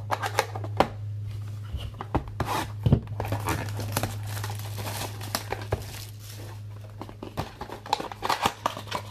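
Plastic wrapping crinkling and tearing in irregular bursts as it is pulled off a sealed box of trading cards by hand, over a steady low electrical hum.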